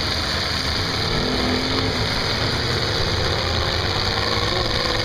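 Several demolition-derby pickup trucks' engines running and revving as the trucks shove against one another, a steady mechanical din with pitches that rise and fall.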